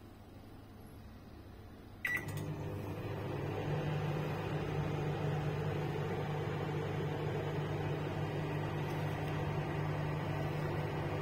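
A Samsung microwave oven beeps once as a keypad button is pressed, about two seconds in. It then starts up and runs with a steady hum while cooking.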